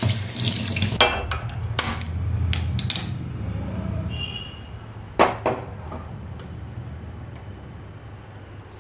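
Stainless steel pot of washed dal knocking and clinking as it is handled and set on a gas stove burner: several sharp metal knocks in the first three seconds and two more about five seconds in, over a low steady hum that fades away.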